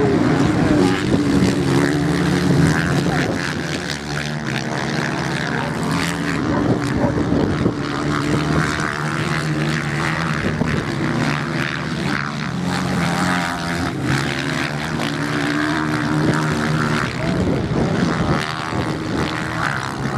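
Several off-road motorcycles racing on a sand track, their engines running hard, the note rising and falling as the riders open and close the throttle.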